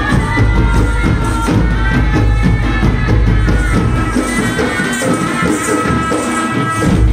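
Live Chhau dance music: a wind instrument plays a held melody over fast, steady drumming. The deepest drum strokes drop out for a few seconds after the middle and come back near the end.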